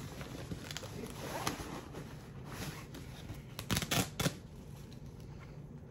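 Rustling as hands rummage through items in a backpack pocket, with a few sharp clicks or scrapes about four seconds in.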